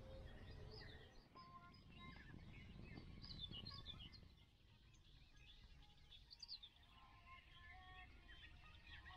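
Faint birdsong: scattered short chirps and quick whistled calls. Beneath it is a low rumble that eases about four seconds in.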